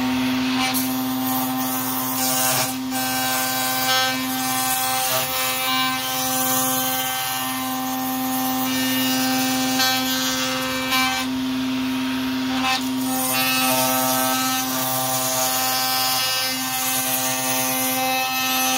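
Table-mounted router with a 3/8-inch flush-trim bit running at full speed, a steady high whine, while its bearing-guided bit trims a wood sheet along a hardwood template. The rough cutting noise swells and eases as the piece is fed around the bit.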